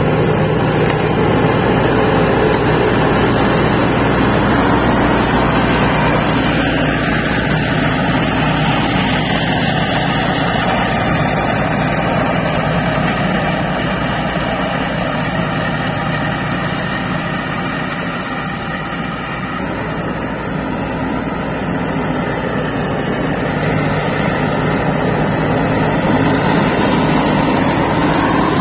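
SCAG Turf Tiger zero-turn mower with a Caterpillar diesel engine running steadily while its deck cuts tall grass. The sound eases a little past the middle as the mower moves away, then grows again.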